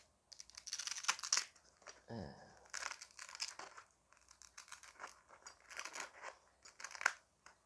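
Hands rustling and crinkling clear plastic packaging while working open a stiff black fabric cell phone pouch, a string of irregular short scratchy rustles.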